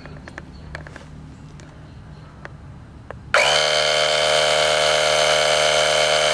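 A few faint clicks of buttons being pressed, then about three seconds in the Auxito AJ01 jump starter's built-in air compressor switches on and runs steadily with a buzzing whine, pumping up a tire that is completely flat.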